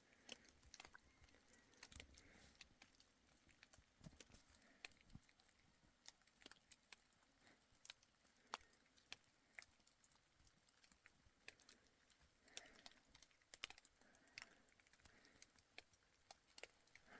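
Near silence, with faint, irregular clicks and ticks scattered throughout.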